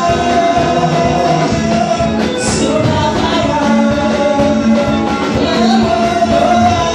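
Worship music with singing: held melody lines over a full band accompaniment at a steady level.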